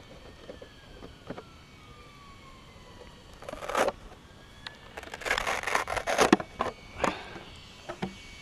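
Handling noises as the plastic body shell is pulled off a radio-controlled car's chassis: scraping, rustling and clicks, loudest from about five to six and a half seconds in.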